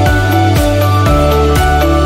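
Background music with a steady beat: held instrumental notes over a drum hit about twice a second.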